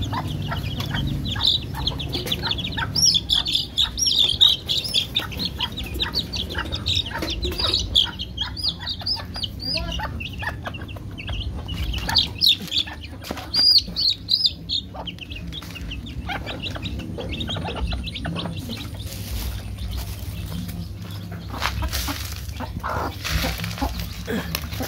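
Chicks peeping, many short high-pitched peeps overlapping thickly for the first fifteen seconds or so and then thinning out, with clucking and short clicking taps among them.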